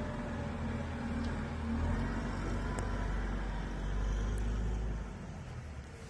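Engine of a snow-clearing wheel loader running with a steady low rumble, which drops away about five seconds in.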